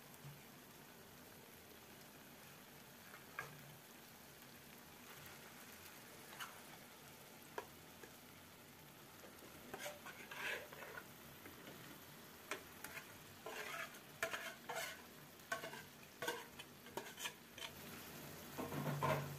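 Faint sizzle of onion-tomato masala frying in a kadai, with a metal ladle clicking and scraping against a steel bowl as marinated chicken is scooped out, mostly in the second half. Near the end a louder burst of sizzling and clatter as the chicken goes into the hot pan.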